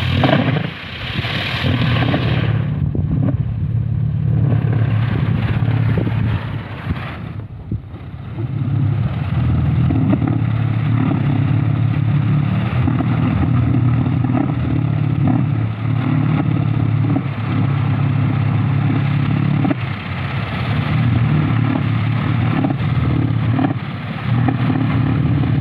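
Kolecer, a Sundanese wind propeller mounted on a pole, spinning in the wind with a loud, steady low drone. The drone dips briefly about two seconds in and again around seven seconds.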